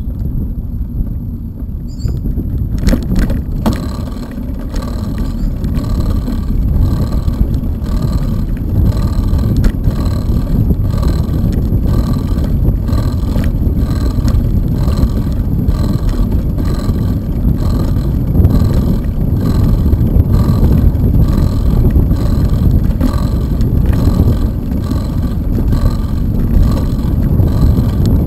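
Bicycle tyres rolling over a wooden plank boardwalk, a steady run of knocks as the wheels cross the board joints, starting about three seconds in. Under it, a loud wind rumble on the microphone.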